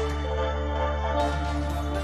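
Background music: sustained chords over a steady low bass.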